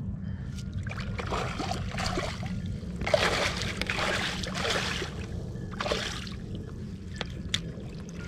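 Water splashing and sloshing as a rubber-mesh landing net is dragged through shallow river water and lifted out, in a few uneven surges, the longest about three to five seconds in.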